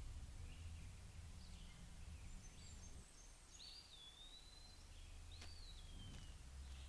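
Faint bird calls over quiet outdoor ambience: scattered short high chirps, and two longer whistled notes in the second half, the second sliding downward. A low steady rumble runs underneath.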